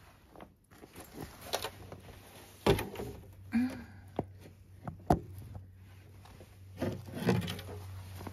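A string of knocks and thumps with some scraping in between, over a faint low steady hum; the sharpest knocks come about a third of the way in and again just past the middle.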